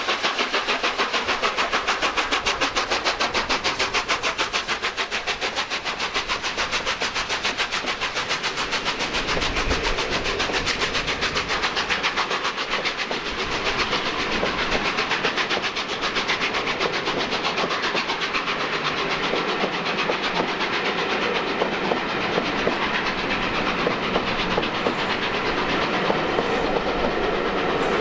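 Steam-hauled passenger train, LNER A1 60163 Tornado and its Pullman coaches, running on the line with a fast, even rhythm of beats.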